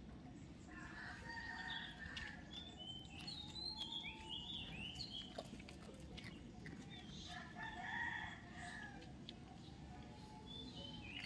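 A rooster crowing twice, the first starting about a second in and the second about seven seconds in, with small birds chirping.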